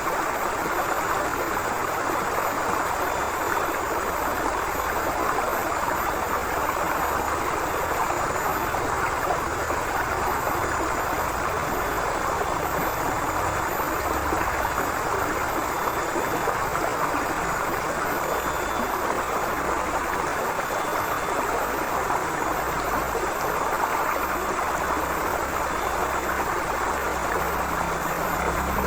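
Forest river flowing steadily: an even rush of running water.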